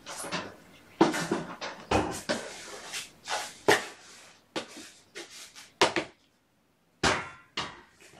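A string of irregular knocks, bumps and rustles, some loud and close, with a brief stretch of silence about six seconds in.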